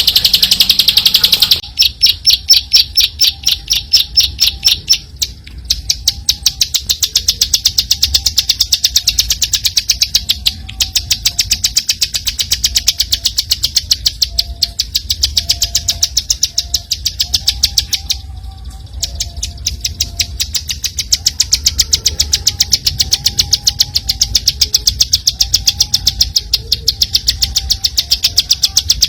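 Bar-winged prinia (ciblek) singing a long, fast run of evenly repeated high notes, several a second, broken by short pauses about five, ten and eighteen seconds in. A low rumble runs underneath.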